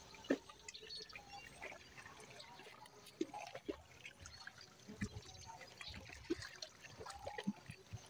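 Sea water lapping gently at the shore, faint, with irregular small trickles and plops.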